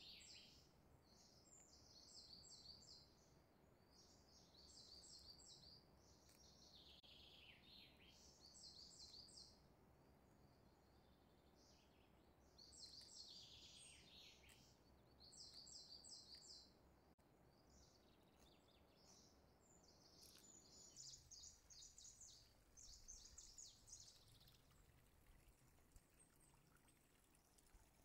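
Faint small birds chirping, in short twittering bursts every second or two over a low steady hiss.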